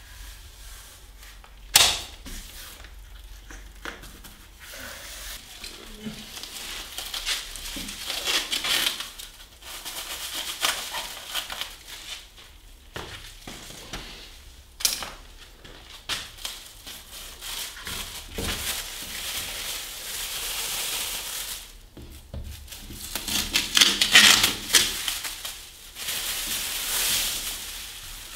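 Plastic masking film, backed with masking tape, crinkling and rustling as it is spread and pressed onto a door, with a few sharp clicks and knocks, the loudest about two seconds in.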